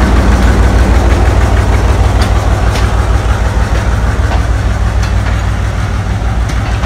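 A diesel-hauled passenger train pulling out: the coaches roll past at low speed with a steady low rumble and occasional sharp clicks, while the diesel-electric locomotive's engine slowly fades ahead.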